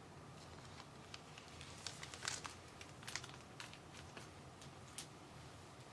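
Faint rustling and light clicking of trading cards and their packaging being handled, in short scattered bursts.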